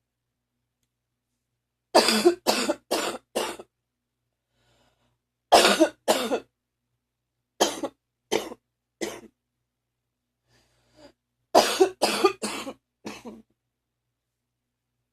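A person's phlegmy cough in four fits of two to five coughs each, with pauses of a second or two between the fits.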